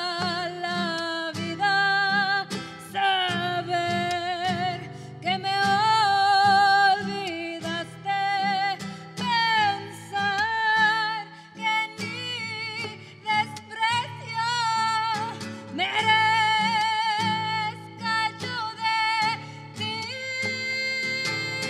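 Woman singing long held notes with a strong wavering vibrato and no clear words, over her own strummed nylon-string classical guitar.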